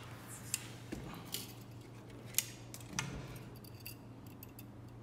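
A few light, sharp metallic clicks and ticks as the steel pull wire and small metal fittings on a scale model truck chassis are handled.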